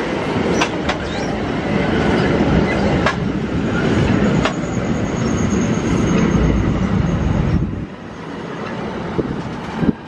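A train passing close by: a loud rolling rumble of steel wheels on rail, with a few sharp clicks and a faint high wheel squeal midway. The rumble drops away about eight seconds in.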